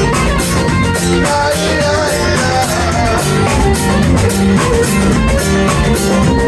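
Rock band music without vocals: guitar playing over a drum kit with a steady beat.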